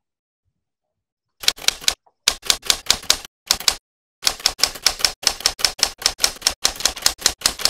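Typewriter keys striking in quick runs of about five keystrokes a second, broken by short pauses, starting about a second and a half in.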